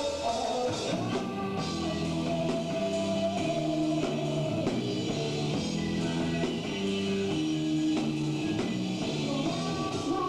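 Live rock band playing: electric guitar and drum kit in a steady groove of held, shifting notes.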